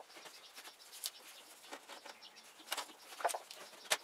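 Faint rag wiping on a pickup's painted rocker panel and door sill in short strokes, with a few brief bird chirps in the background.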